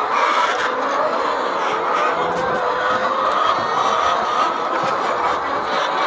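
A large flock of brown laying hens clucking and calling together in a dense, steady chatter of many overlapping voices.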